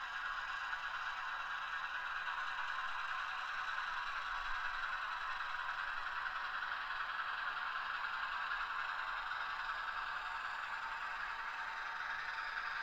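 HO-scale Atlas ALCO C-420 model diesel locomotive's factory-installed LokSound 5 sound decoder playing a steady diesel engine sound through its small speaker as the model runs on the track.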